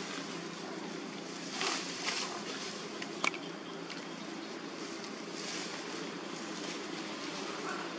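Steady outdoor background noise with a low hum, broken by a few brief sharp clicks about two and three seconds in.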